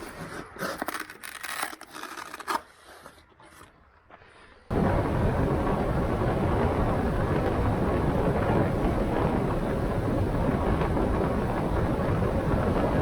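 A few scattered clicks and scrapes from handling, fading away. About five seconds in, a loud, steady rush of wind on the microphone starts abruptly and carries on.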